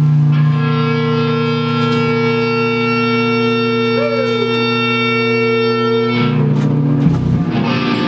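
Heavy metal music: a distorted electric guitar chord held and ringing steadily, with a note sliding up and back down about four seconds in. The held chord drops away about six seconds in, and a sharp hit comes about a second later.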